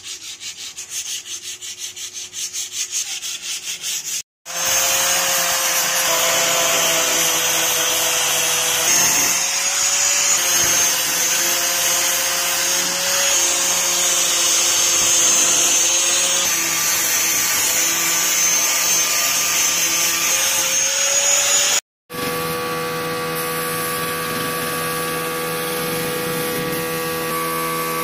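Hand sanding of the truck bed's steel side in a quick back-and-forth rhythm. After a cut, an angle grinder runs steadily against the steel bed floor with a high whine, stripping old paint and rust. After another cut, a paint spray gun hisses steadily over a steady hum.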